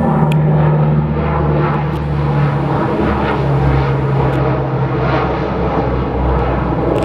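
Aeroplane flying overhead with a steady engine drone that drops in pitch a little past halfway as it passes.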